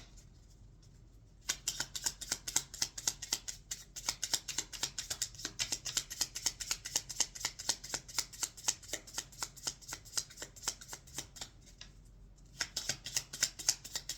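A deck of affirmation cards being shuffled by hand: a quick run of crisp card clicks, pausing briefly near the start and again about twelve seconds in.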